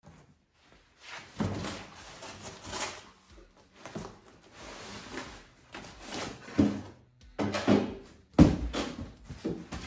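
A cardboard shipping box handled on a metal table: set down, its flaps pulled open and the box lifted off its contents, with rustling, scraping and knocks. The loudest is a bump about eight and a half seconds in.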